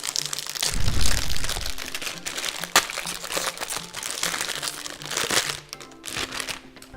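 A plastic hard-drive wrapper being handled and pulled open, crinkling continuously with sharp crackles, one especially sharp crack about three seconds in.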